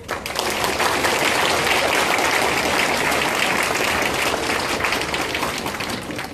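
Audience applauding, many hands clapping. It builds up quickly at the start and eases off slightly near the end.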